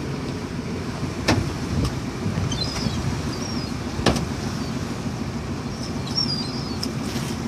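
Small fishing boat's engine running steadily under wind and water noise, with two sharp knocks, one about a second in and one about four seconds in.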